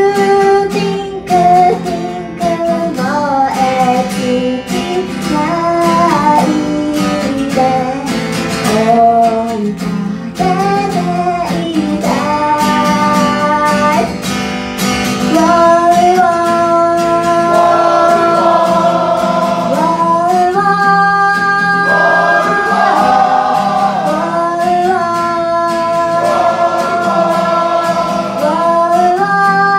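A woman singing a song live into a microphone while strumming an acoustic guitar, with long held notes in the second half.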